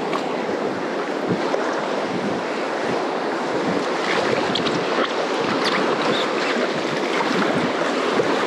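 Whitewater rushing steadily around a paddleboard running a small river rapid, with light splashes scattered through the rush.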